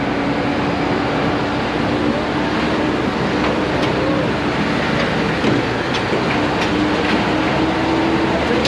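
Monster Bus off-road truck under way, heard from the passenger cabin: a steady loud drone with an even hum, and scattered rattles and clanks over the rough track.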